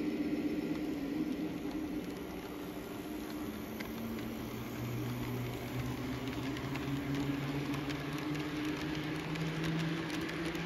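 KATO N-gauge model trains running on sectional track: a steady motor hum, with a lower hum coming up about four seconds in as a train draws near. In the second half there is quick clicking of freight-wagon wheels over the rail joints as the train passes close.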